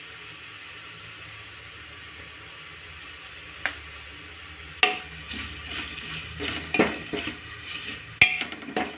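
Metal spoon stirring onions, green chillies and turmeric frying in hot oil in a pressure cooker: a steady sizzle, one tap a few seconds in, then from about five seconds in repeated scrapes and clinks of the spoon against the pot.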